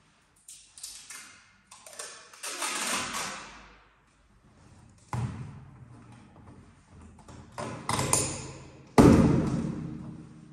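Cardboard parcel being handled by hand: a few small clicks, a long scraping rustle, a sharp knock about five seconds in, more rustling, and a loud thud about nine seconds in.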